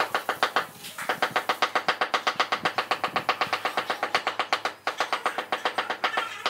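Fast, even tapping on a ceramic floor tile, about eight knocks a second, as the tile is tapped down into its mortar bed. The tapping pauses briefly about a second in and again near five seconds in.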